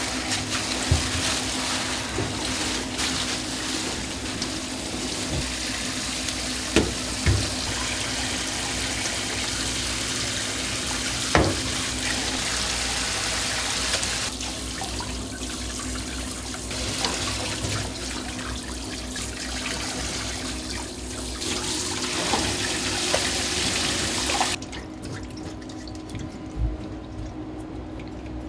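Tap water running into a sink, with a few sharp knocks; the water cuts off abruptly a few seconds before the end, leaving a steady low hum.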